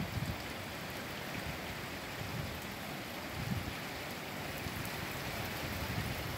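Rain falling steadily, an even hiss, with a faint gust of wind buffeting the microphone about three and a half seconds in.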